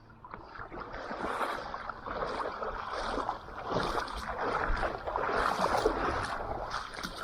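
Water sloshing and splashing close by, swelling and easing several times.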